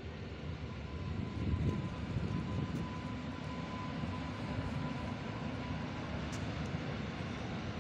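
Regional passenger train moving through the station some way off: a low rumble of wheels on rails that swells about a second in and then holds steady, with a thin steady whine through the middle of it.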